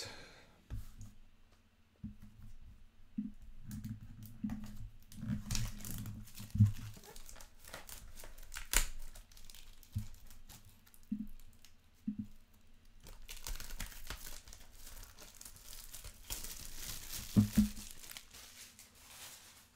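Plastic shrink-wrap crinkling and tearing as a sealed trading-card hobby box is unwrapped by hand, most densely in the last few seconds. The cardboard box knocks and thumps on the table a few times, loudest about six seconds in and near the end.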